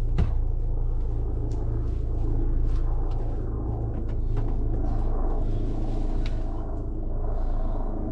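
Helicopter flying in the distance: a steady low rumble from its rotor and engine. A sharp click just after the start and a few lighter clicks sound over it.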